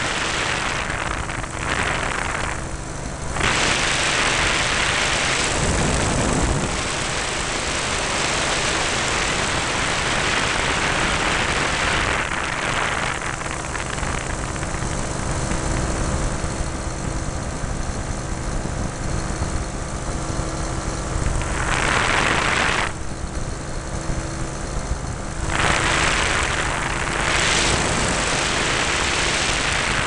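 Ultralight aircraft engine and propeller running steadily in flight, with wind rushing over the microphone that swells and eases several times.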